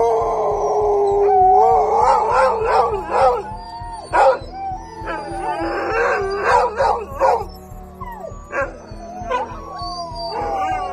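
A large group of sled dogs (huskies) howling together in chorus, starting suddenly and loudly: many overlapping howls rising and falling in pitch, with short yips and barks mixed in.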